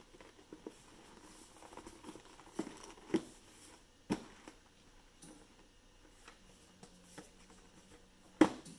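Paperboard box lid slid down over a carton base and pressed shut: soft scraping and rustling of cardboard with a few light knocks, and one sharper cardboard knock near the end.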